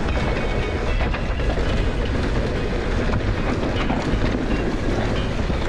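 2020 Norco Range VLT e-mountain bike rolling fast down a rough dirt trail: a steady rush of tyre and trail noise with constant rattle and clatter from the bike.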